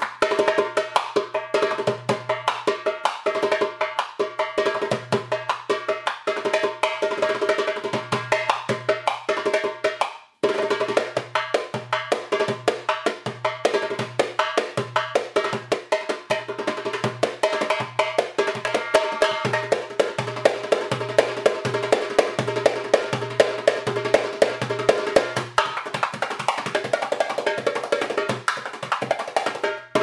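Arabic-style instrumental music with a fast, busy percussion rhythm under a held melody. It drops out for a moment just after ten seconds in, then resumes.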